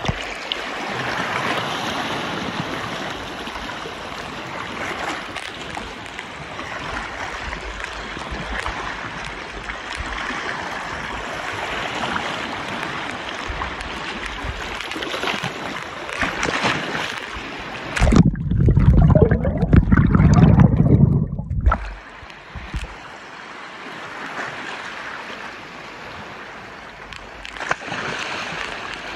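Shallow seawater sloshing and splashing around a microphone held at the water's surface. A little past the middle, for about three and a half seconds, the microphone goes under and the sound turns to a loud, muffled low rumble with the highs cut off.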